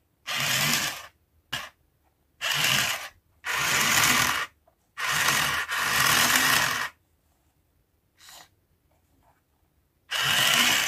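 Small electric gear motor in a homemade ice-cream-stick wheel loader whirring in a string of short bursts, each under a second, with pauses between, as it is switched on and off to lift the front bucket.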